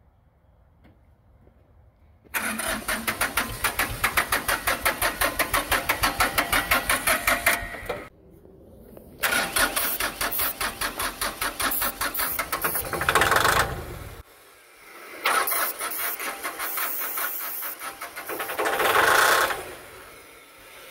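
Ford 1520 tractor's three-cylinder diesel being cranked by its starter in three tries of about five seconds each, with an even pulse of about four or five beats a second, never catching. It turns over but gets no fuel: a blown fuse has cut power to the fuel shutoff solenoid.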